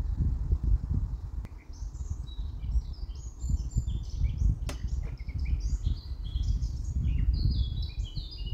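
Birds chirping in quick, overlapping short calls over a low, uneven rumble, with one sharp click about halfway through.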